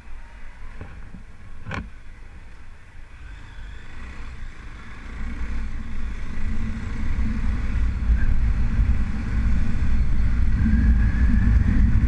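Motorcycle engine and road and wind rumble heard from the bike itself. It is low for the first few seconds, then grows louder as the bike picks up speed and holds steady. A single sharp click comes about two seconds in.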